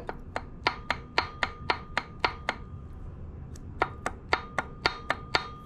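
Sharp metallic clicks at about four a second, in two runs with a pause between, over a faint steady ringing tone: metal parts of the torn-down VW engine being worked by hand.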